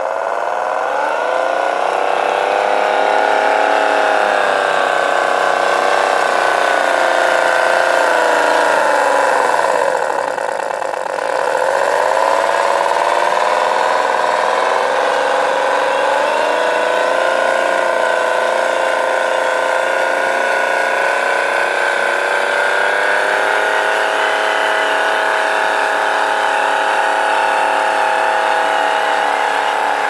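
Radio-controlled scale-model logging truck driving under a heavy log load, its drive motor and gear train whining. The pitch rises over the first few seconds, sinks to a low about ten seconds in, then climbs again and holds fairly steady.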